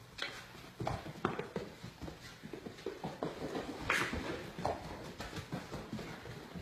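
A German shepherd moving about and playing on the floor: irregular taps and knocks of its paws, with a sharper knock about four seconds in.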